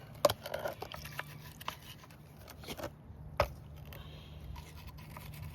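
Light scraping and scattered clicks of a brush scrubbing grime off a chainsaw's housing. There are two sharp knocks, one just after the start and one about three and a half seconds in, over a steady low hum.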